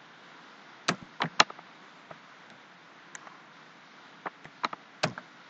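Computer keyboard keys being pressed: about ten sharp, separate clicks at an irregular pace, some in quick pairs, over a faint steady hiss.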